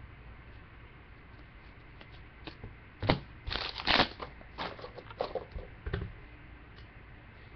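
A stack of trading cards handled and squared by hand: quiet at first, then a cluster of sharp card snaps and rustles, loudest about three and four seconds in, followed by the crinkle of foil card packs being touched about six seconds in.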